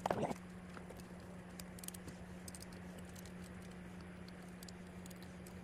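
A short clatter of small metal parts and tools being handled on a workbench, right at the start, then a few faint scattered clicks over a steady low hum.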